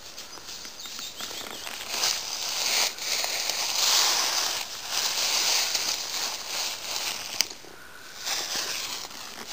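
Dry fallen leaves rustling and crunching as feet move through deep leaf litter, in uneven surges. A brief sharp click comes about seven seconds in, followed by a short lull.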